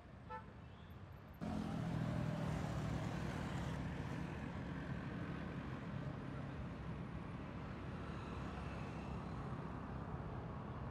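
Steady road-riding noise from a moving vehicle, a continuous engine and road rumble that comes in suddenly about a second and a half in, after a quieter stretch with a brief chirp near the start.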